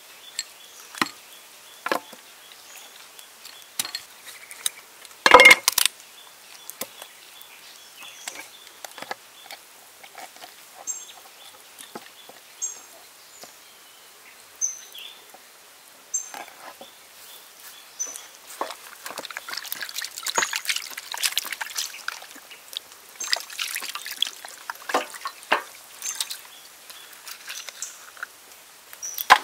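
A large knife chopping and cutting through a whole raw chicken on a wooden board: scattered knocks and one loud chop about five seconds in. Later, wet squishing and splashing as the raw chicken is handled in a metal tray of water, with short bird chirps in the background.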